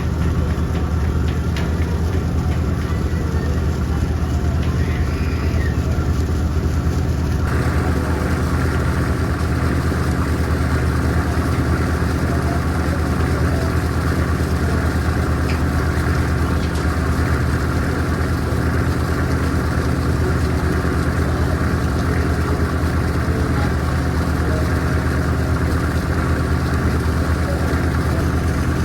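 A river ferry's engine running with a steady low drone, under a constant rushing hiss that gets louder about seven seconds in.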